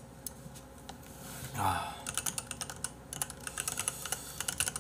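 Rapid typing on a computer keyboard, a quick run of clicks through the second half, after a brief low vocal sound from the person at the desk.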